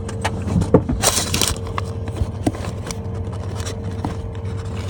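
Vehicle running, heard from inside the cabin as a steady low hum, with scattered clicks and a brief rustling scrape about a second in.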